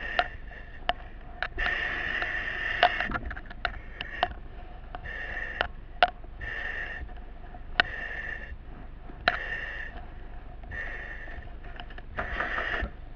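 Firefighter breathing through a breathing-apparatus mask, the demand valve hissing with a whistly ring on each breath, about every second or two. Sharp clicks and knocks of gear come in between.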